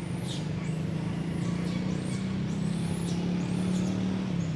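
Low, steady hum of a motor vehicle's engine running close by, its pitch drifting slightly. Short high sweeping chirps recur over it about once a second.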